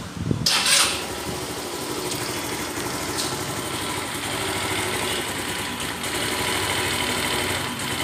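Kymco Super 8 GY6 scooter engine starting about half a second in, then idling. The idle is not stable, which the mechanic puts down to an air leak.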